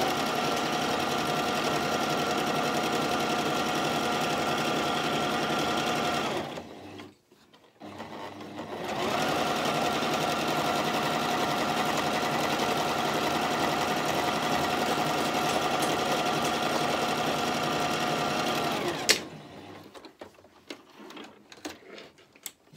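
Toyota electric sewing machine stitching fabric at a steady speed, stopping about six seconds in, starting again about two seconds later and running for about ten seconds more before stopping. A few light clicks of handling follow near the end.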